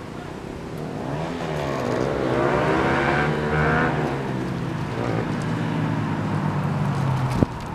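A motor vehicle's engine passing close by, building to its loudest about three seconds in and then easing off. A single sharp click comes near the end.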